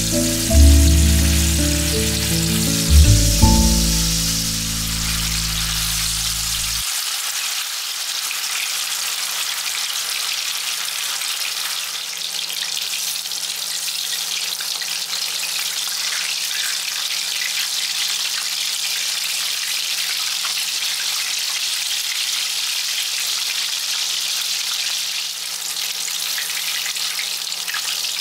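Chicken pieces coated in turmeric, chili and potato starch deep-frying in hot vegetable oil in a wok: a steady crackling sizzle. Background music plays over it for the first few seconds, then stops, leaving the frying alone.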